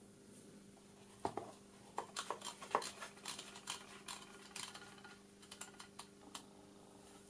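Irregular light clicks and taps as the EPR indicator's case is handled and its rotary encoder is turned, starting about a second in and dying away after about six seconds, over a faint steady hum.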